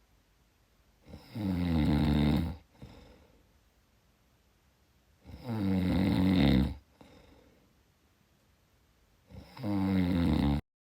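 A person snoring: three loud, drawn-out snores about four seconds apart, each followed by a faint breath. The last snore cuts off abruptly near the end.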